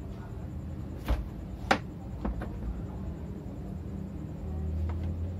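Large knife cutting through a ripe papaya and knocking on a plastic cutting board: two sharp knocks a little over a second in, the second the louder, then a few lighter taps. A steady low hum runs underneath.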